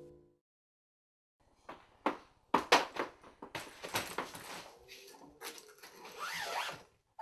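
A plastic chip bag crinkling and crackling in an irregular run of sharp rustles as a hand digs into it, starting about a second and a half in.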